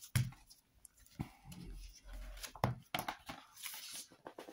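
Handling a large hardcover book: a few short knocks of the book against the table, and the rustle of its paper dust jacket being slid off the cover.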